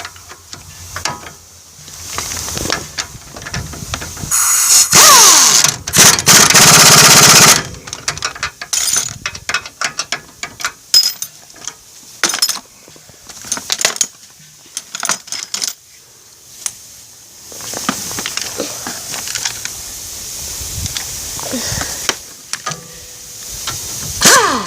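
Work on a Toyota Tacoma's front axle: scattered metal clanks and ratchet clicks from hand tools, with a loud power tool running for about three seconds some five seconds in.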